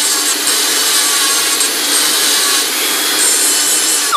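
Small 2-inch grinder grinding down the protruding ends of mounting bolts: a loud, steady grinding of metal on metal. It is released at the very end, and its pitch starts to fall as it spins down.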